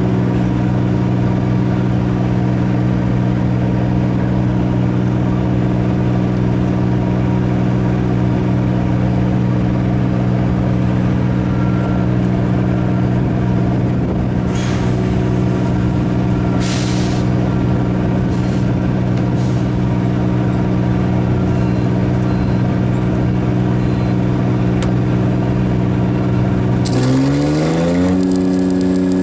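An engine running at a steady speed, with a steady hum. Near the end its pitch climbs over about a second and then holds at a higher speed.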